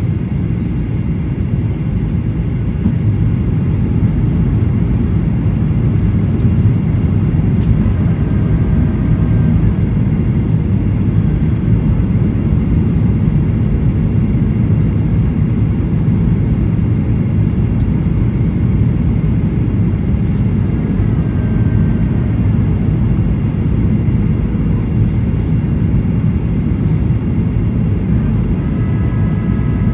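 Steady roar of jet engine and airflow noise heard inside the cabin of a Boeing 737-800 descending on approach with its flaps extended. The sound is heaviest in the low rumble and gets a little louder a few seconds in.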